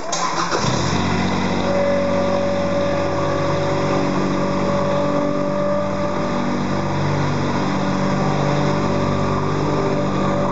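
A small petrol engine catches at the start, comes up to speed within about a second, then runs steadily.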